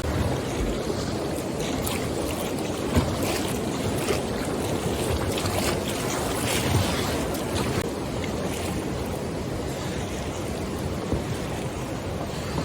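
Fast, high river water rushing and splashing around a kayak, with a few sharper splashes or knocks.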